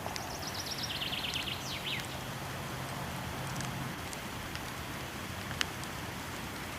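Steady rush of a waterfall with occasional faint crackles of a wood fire and one sharper pop about five and a half seconds in. In the first two seconds a songbird sings a rapid series of short notes falling in pitch.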